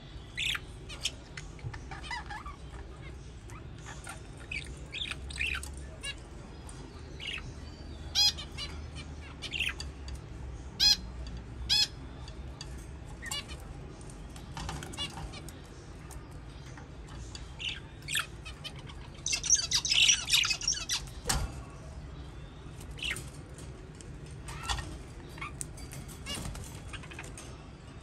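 Young budgerigars making scattered short chirps and squawks, with a burst of wing flapping about two-thirds of the way through and a single sharp knock right after it.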